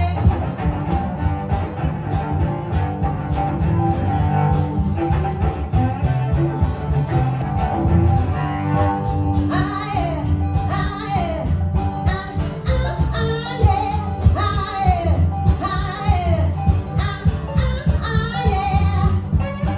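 Live string band playing: a bowed cello, a plucked upright bass, a mandolin and an acoustic guitar, with a steady bass line underneath. A woman sings lead from about halfway through.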